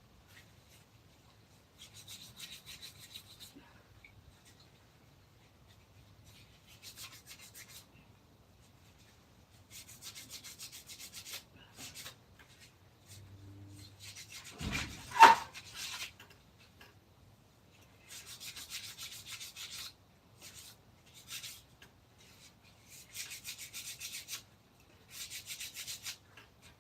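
Wood being worked by hand with an abrasive tool, in runs of scraping strokes a second or two long with short pauses between. There is one loud knock about fifteen seconds in.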